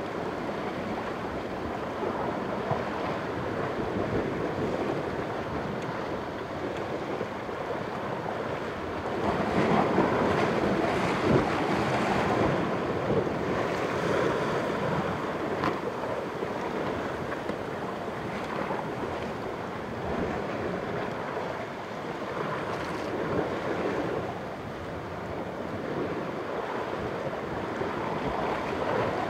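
Sea waves washing against the rocks at the foot of a cliff: a continuous rushing surge that swells louder about ten seconds in and again later, with some wind on the microphone.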